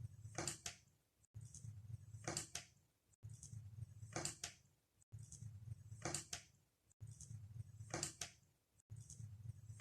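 A faint, evenly repeating loop, about once every two seconds: a low hum topped by two or three sharp clicks, broken by a brief dropout between repeats.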